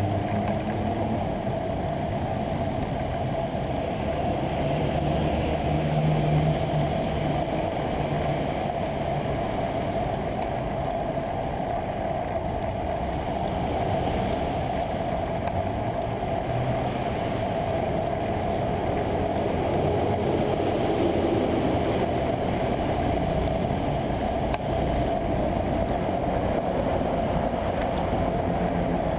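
Steady rushing wind and road noise of a bicycle ride in traffic, picked up by a GoPro Hero 2 mounted on the bike.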